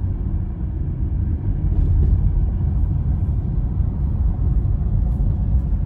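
Steady low rumble of a car driving along a road: engine and tyre noise heard from inside the cabin.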